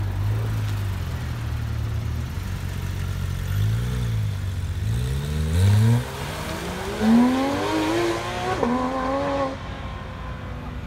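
Porsche 911 GT3's flat-six engine idling, given a couple of short revs, then accelerating hard away. The revs climb, drop at an upshift about six seconds in, climb again through another shift, and fall away near the end.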